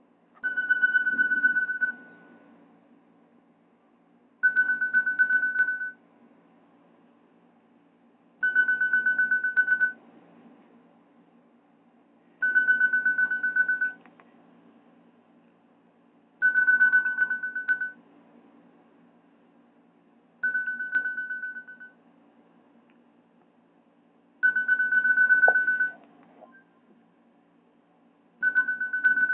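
A Nokia E65 ringtone playing through a Nokia 216 phone's speaker: a high, fluttering beep about a second and a half long, repeating about every four seconds.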